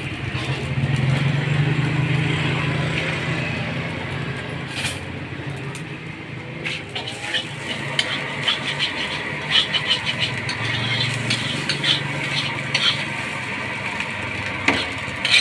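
A metal spatula is scraping and clinking against a steel wok as fried rice and noodles are stir-fried. The strokes come thick and fast from about seven seconds in, over a steady low rumble that is loudest near the start.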